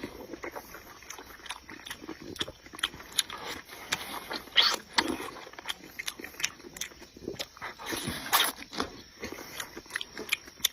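Close-miked eating: wet chewing and slurping of soft, chewy sweet-potato starch sheets, with irregular mouth clicks and smacks.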